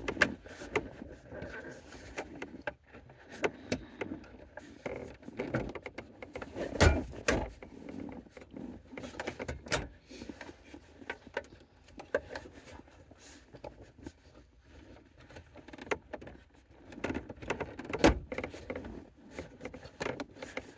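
Intermittent clicks, knocks and rustling of parts and tools being handled in a car's cabin during steering-column repair work, with louder knocks about 7, 10 and 18 seconds in.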